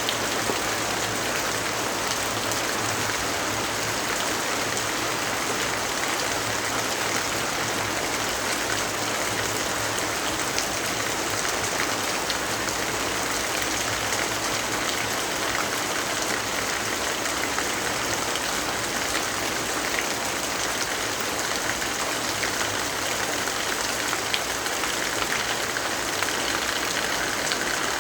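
Steady rainfall: an even, unbroken hiss of rain with faint scattered ticks of drops.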